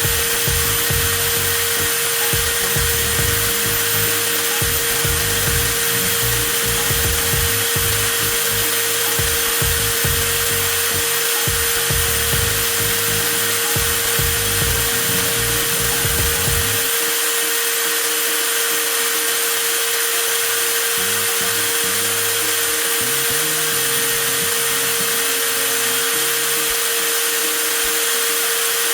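Cordless 20V angle grinder motor running steadily with a high-pitched whine, left running on its 4 Ah battery to time how long the battery lasts.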